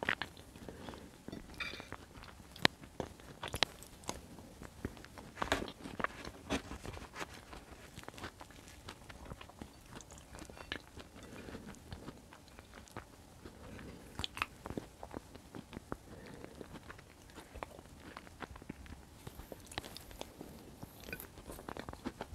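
Close-miked chewing and wet mouth sounds of someone eating white beans in tomato sauce, with irregular sharp clicks and a metal spoon scraping the plate.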